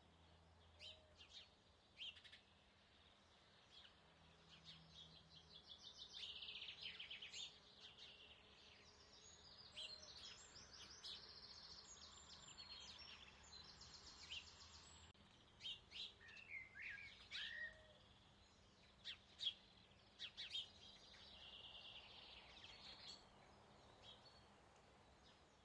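Faint woodland birdsong: several birds giving short chirps and rapid trills, over a faint low background hum.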